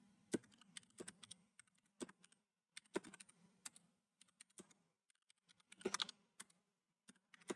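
Computer keyboard typing: faint, irregular keystrokes with short pauses, including a quick run of keys about six seconds in.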